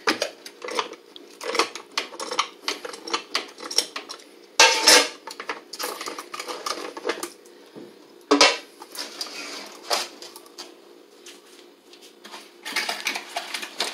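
Plastic end cap of a reverse-osmosis membrane housing being worked loose and unscrewed: an irregular run of clicks, knocks and scrapes of hand tool and hard plastic, with louder clunks about five and eight and a half seconds in.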